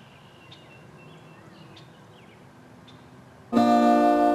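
Faint outdoor ambience with a few small high chirps. About three and a half seconds in, loud outro music comes in sharply: a guitar chord struck and left ringing.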